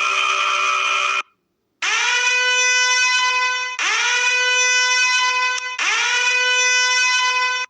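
Meme sound effect of three long, identical horn blasts. Each one scoops up in pitch at its start and then holds steady for about two seconds. They follow a buzzy held tone that cuts off about a second in.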